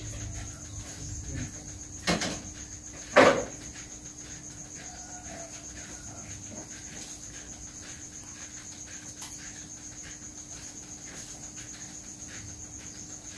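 Crickets chirping in a steady, high, pulsing trill, with two short loud sounds about two and three seconds in, the second the louder.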